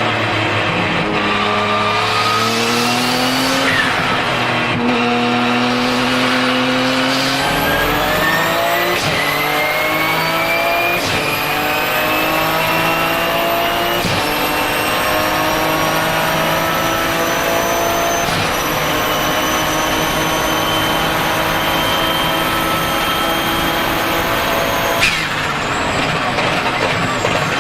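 Twin-turbocharged 3.9-litre flat-six of a Porsche 997 GT2 RSR race car pulling hard through several upshifts of its sequential gearbox, the engine note climbing and dropping back at each shift. A high turbo whistle rises and holds over the engine from about a third of the way in, then cuts off suddenly near the end.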